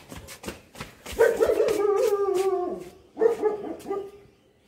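A dog giving two long, wavering cries, the first about a second and a half long and the loudest, the second shorter. Light knocks and rustles of bedding being handled come before them.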